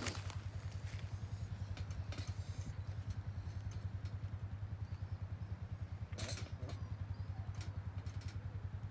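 Metal clinks and rattles from a wire cage live trap as its door and trigger are set, loudest about two seconds in and again past six seconds, over a steady low rumble.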